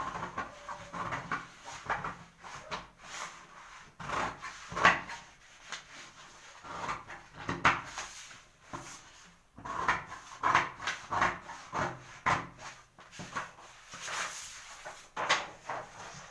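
Scissors cutting through a paper blouse pattern: irregular snips with the paper rustling.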